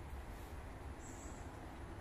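Outdoor garden ambience: a steady low rumble with a hiss over it, and one brief high-pitched chirp about a second in.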